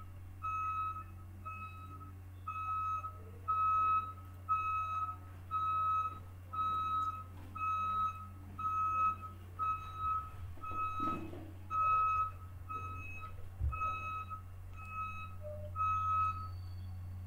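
Electronic beeping: one steady high-pitched tone repeated about twice a second, then stopping about a second before the end. A constant low hum runs underneath.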